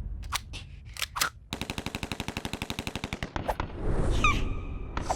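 Cartoon sound effects: a few separate clicks, then a fast rattle of clicks, about thirteen a second for about two seconds, followed by a short squeaky character call.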